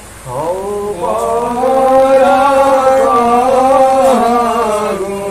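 Men chanting an Assamese devotional naam in a drawn-out melodic style. The chant breaks off briefly at the start, then rises into long held notes.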